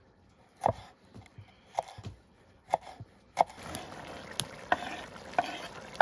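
Knife chopping on a cutting board: about ten short, sharp knocks at an uneven pace.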